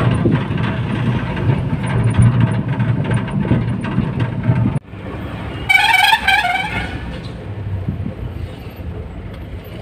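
Truck running on the road, a steady low rumble of engine and road noise heard from its open cargo bed. It cuts off suddenly; shortly after, a vehicle horn sounds once for about a second with a wavering pitch, over quieter road noise inside a vehicle cab.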